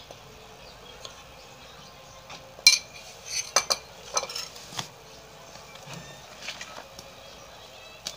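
Spoon and spatula clinking against the bowls as flour is spooned into cake batter a little at a time and stirred in by hand. A cluster of sharp clinks comes about three to five seconds in, the loudest near the start of it, with a few softer taps later.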